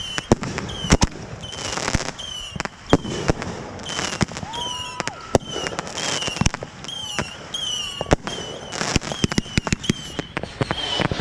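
Consumer fireworks finale heard at close range: an irregular string of sharp bangs from aerial shells bursting, with crackling sizzle trailing after several of them.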